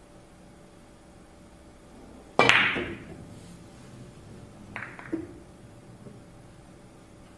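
Carom billiards shot: a sharp crack of the cue tip and the cue ball striking the first object ball about two and a half seconds in, then two lighter clicks about two seconds later as the cue ball meets the second ball, scoring the carom.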